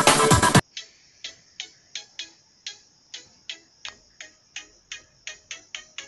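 Electronic music cuts off suddenly about half a second in. It gives way to a run of sharp, high ticks, about two to three a second in a slightly uneven rhythm, like a clock ticking.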